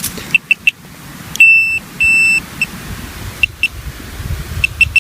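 Metal-detecting pinpointer probe beeping while searching a dug hole for a buried metal target. It gives short high chirps, then two longer steady tones about a second and a half in as it comes onto the target, then more short chirps near the end.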